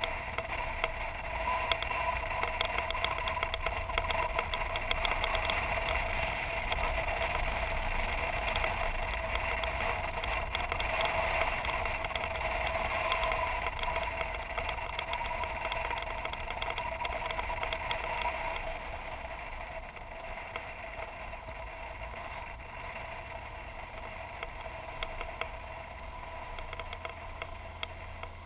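BMW R1200GS Adventure motorcycle's boxer twin engine running while riding a dirt road, with a dense patter of small ticks over a steady drone. It gets noticeably quieter about two-thirds of the way through.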